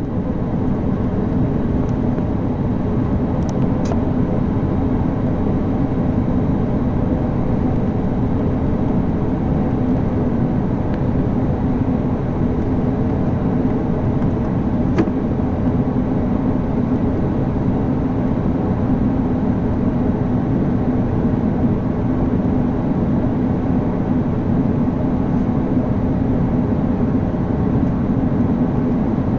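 Steady low rumble of an Airbus A350 on the move, heard from inside the passenger cabin, holding at an even level with no spool-up.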